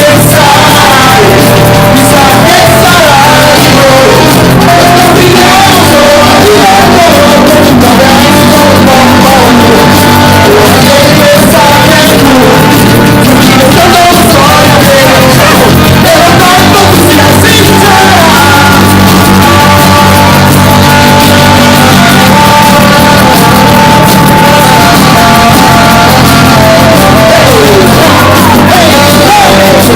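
Live band playing with a singer, recorded on a mobile phone at a level so loud that the sound is very poor and distorted.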